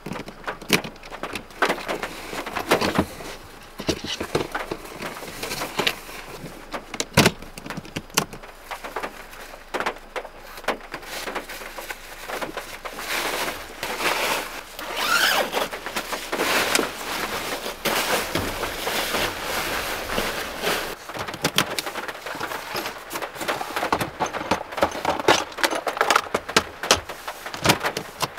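Rustling of cloth and plastic with irregular knocks and clicks as things are handled inside a small van's cabin: a bag or cloth is shaken out and a cabinet drawer and plastic container are handled.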